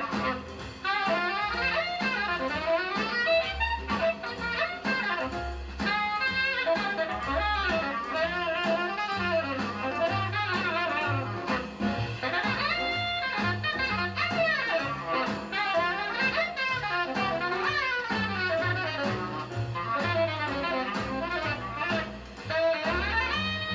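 Small-group jazz with a fast saxophone lead over drums and bass, played from a vinyl record through a 2A3 single-ended tube amplifier and JBL 4312D monitor speakers. Near the end the horns land on a long held note.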